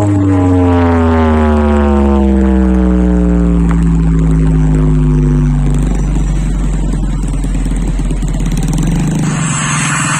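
Large outdoor sound system playing an electronic tone that slides slowly down in pitch for about six seconds over a deep, heavy bass. The bass drops out about nine seconds in.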